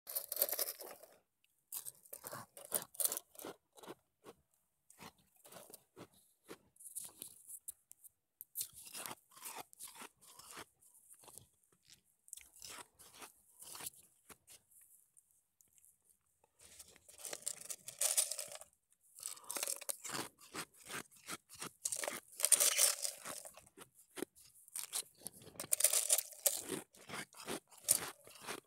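Ice cubes being bitten and chewed right at the mouth, picked up close by an earphone microphone: runs of sharp crunching cracks in bursts, with a pause of about two seconds midway and the loudest crunching in the second half.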